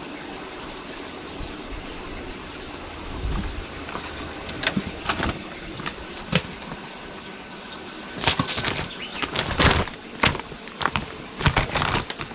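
Kittens scrambling and play-fighting on a plastic tarpaulin: irregular bursts of crinkling rustle and scrabbling claws, busiest in the last few seconds, over a steady background hiss.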